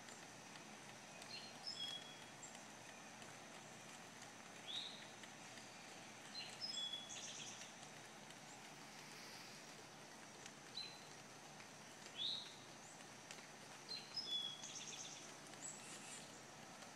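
Songbirds calling in the trees: scattered short high chirps and quick downward-sweeping whistles every second or two, over a faint steady high-pitched hum.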